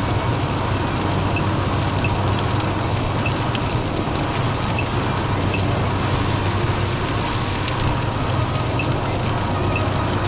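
Steady road and engine noise heard from inside a car cruising on the expressway, with a low, even hum. Faint, very short high beeps come at irregular intervals.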